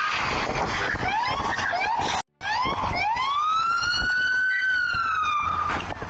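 Emergency vehicle siren: a few short rising whoops, a brief cut-out, then one long wail that rises, holds and falls away near the end, over a noisy background.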